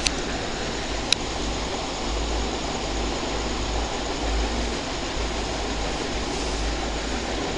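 Steady room background noise: a low rumble and even hiss, with two sharp clicks, one at the start and another about a second in.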